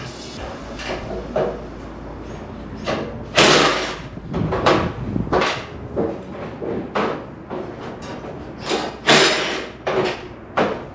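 Irregular knocks and clunks of tools and hardware on a fiberglass kit-car door as it is taken apart, about a dozen hits, the loudest about three and a half and nine seconds in.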